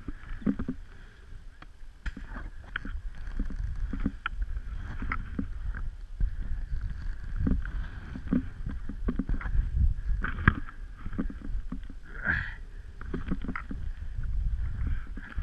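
Skis, boots and poles scraping and crunching through deep snow in irregular knocks and scuffs as a skier struggles to climb out of steep ground, with wind rumbling low on the microphone.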